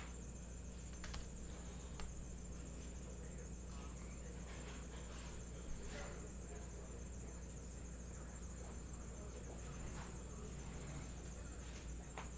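Quiet room tone: a steady high-pitched whine and a low hum, with a few faint clicks and taps from handling things at a desk.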